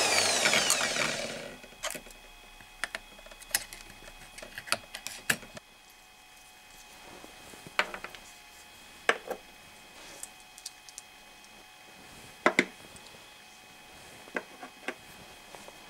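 A drill press motor spinning down, its whine falling in pitch and dying away over the first second or so. Then a dozen scattered light clicks and knocks as small plywood discs and steel hex nuts are set down on a wooden workbench.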